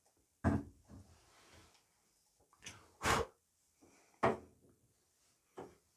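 About five sharp metallic clacks and knocks, spaced a second or so apart, from a Zippo lighter and a kerosene lantern being handled during an attempt to light the lantern's wick.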